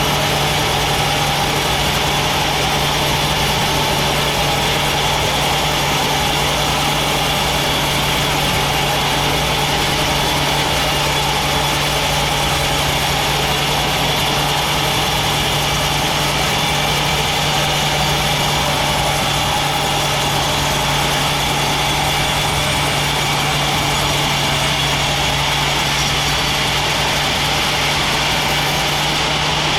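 Sawmill machinery running steadily, a loud constant hum with a steady higher tone above it, unchanging throughout.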